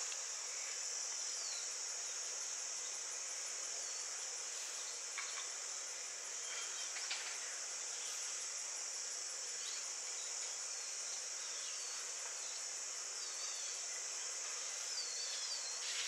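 A steady, high-pitched insect chorus droning without a break, with a few faint short chirps over it.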